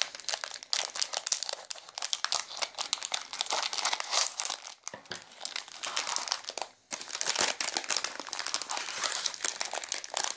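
Thin plastic snack packet crinkling and rustling as it is cut open across the top with scissors and handled, with short pauses about five and about seven seconds in.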